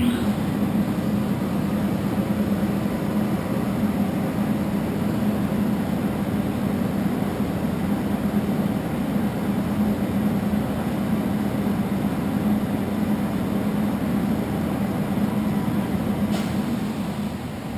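American Pacemaker 25" x 120" geared-head engine lathe running with its spindle at about 96 RPM: a steady, loud drone from the headstock gearing and drive. The level falls off near the end.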